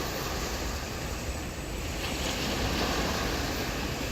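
Sea waves breaking and washing up on a beach: a steady rushing wash with a low rumble underneath.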